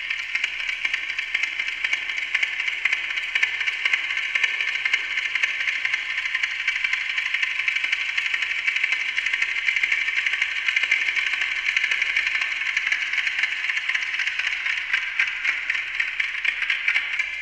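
Amplified ticking of a Westclox Silver Bell alarm clock fed through a digital delay system whose delay time is set by a performer's galvanic skin response sensor, the delayed copies piling into a dense, steady stream of overlapping clicks.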